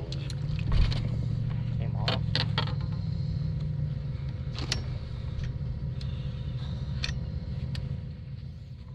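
Steady low motor hum on the boat, swelling just after the start and fading over the last few seconds, with a thump about a second in and a few sharp knocks.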